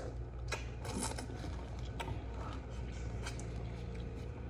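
Faint eating sounds during a mukbang: a few small, sharp clicks and smacks spread over a few seconds, above a steady low hum.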